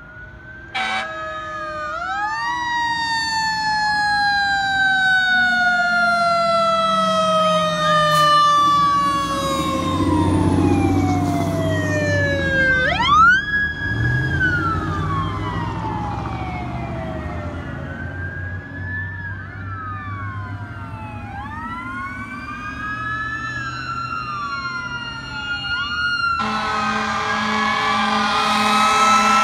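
Fire department electronic sirens wailing, two or more at once in slow rising and falling sweeps, with a vehicle's engine rumble as a fire chief's SUV passes midway. About three seconds from the end a loud steady horn-like tone with a pulsing low note cuts in as a fire engine approaches.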